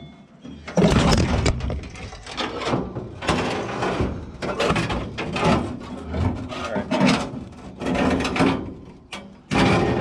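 Irregular clunks, scrapes and rattles of metal body parts being handled and worked loose inside an old car body, one after another with no steady rhythm.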